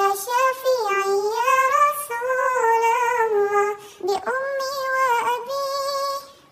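A single high voice singing an Arabic song, holding long wavering notes. It breaks off briefly about four seconds in, then goes on.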